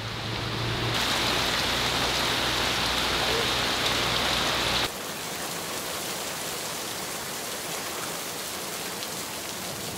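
Steady heavy rain pouring down. It is louder for the first few seconds, then drops suddenly to a slightly softer, even patter about five seconds in.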